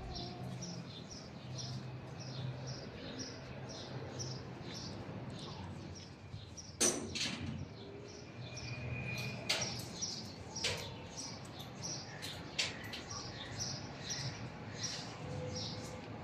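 A bird chirping over and over, short high chirps about two to three a second, with a few sharp knocks, the loudest about seven seconds in.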